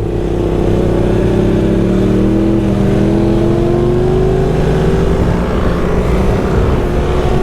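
BMW R1300GS boxer-twin engine pulling under acceleration on track, its pitch rising slowly over the first few seconds and then holding steady, over a constant rush of wind noise.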